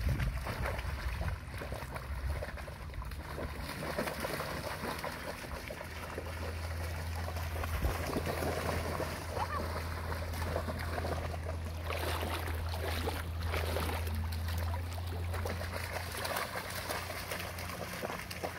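Dogs splashing through shallow lake water as they run and play with a stick, with louder splashes about twelve and thirteen seconds in.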